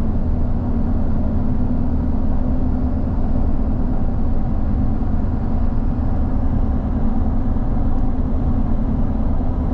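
Steady road and engine noise heard inside a moving car's cabin, a constant low drone with no breaks.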